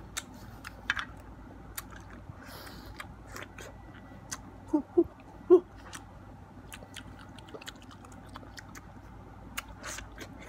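A person biting and chewing the soft flesh of a ripe peeled mango close to the microphone: scattered mouth clicks and smacks, with two short pitched vocal sounds from the eater about halfway through.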